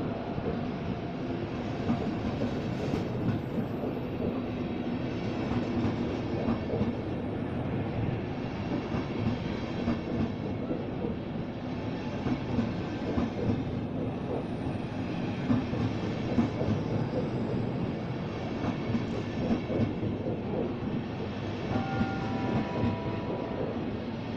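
A Deutsche Bahn InterCity train's coaches rolling steadily past along the platform, with a continuous rumble of wheels on rail and rapid small ticks. A few brief steady tones sound near the end.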